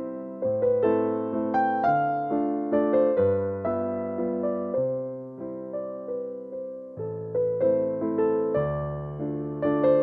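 Background music: a solo electric piano playing a gentle melody, with notes struck about two or three times a second over a bass line.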